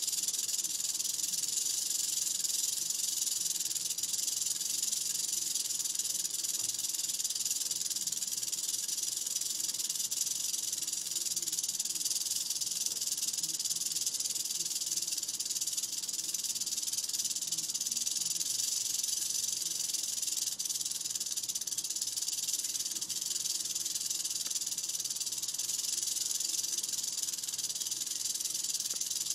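Mojave rattlesnake shaking its tail rattle in a continuous, steady high buzz.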